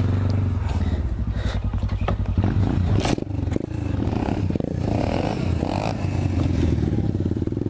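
Apollo 125cc dirt bike's small single-cylinder four-stroke engine running close by, with a few sharp knocks about one and a half, two and a half and three seconds in.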